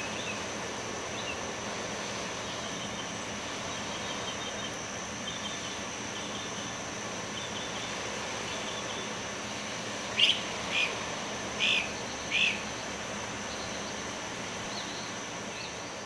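Outdoor nature ambience: birds chirping over a steady hiss and a steady high-pitched drone, with four louder short bird calls in quick succession about two-thirds of the way through.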